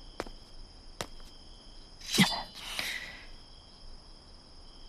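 Night ambience of crickets, a steady high chirping trill, with a few sharp ticks. About two seconds in comes a short loud sound, followed by a brief whoosh.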